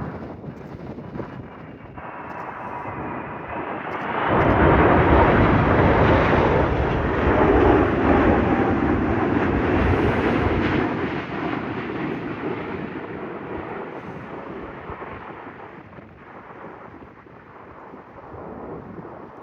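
Emirates Airbus A380's four jet engines passing by, swelling sharply about four seconds in, loudest for several seconds, then fading, with wind buffeting the microphone.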